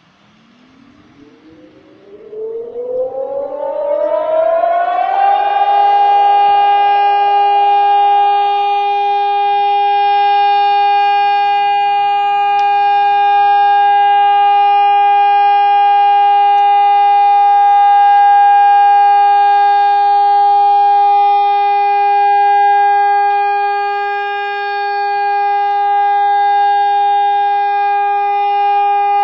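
Air raid siren sounding for a test: it winds up with a rising pitch over about five seconds, then holds one loud, steady tone.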